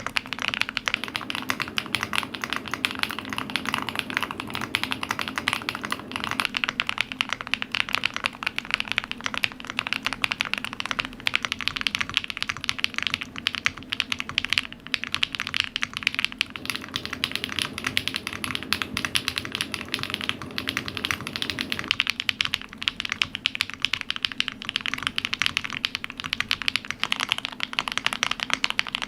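Mechanical keyboard typing: fast, continuous key clicks with no pauses.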